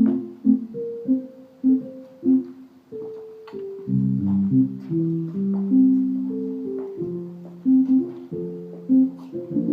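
Instrumental music: a slow melody of separate plucked or struck notes, joined by fuller, lower chords from about four seconds in.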